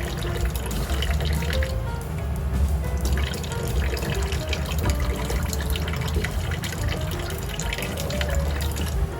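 Background music with a steady bass line, over water running from a kitchen tap into a sink.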